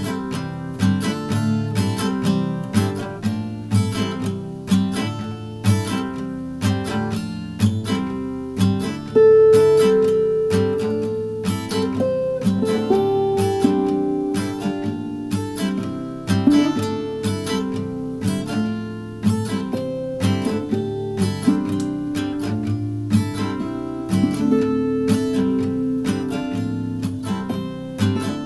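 Instrumental acoustic guitar music, strummed chords mixed with picked notes in a steady rhythm.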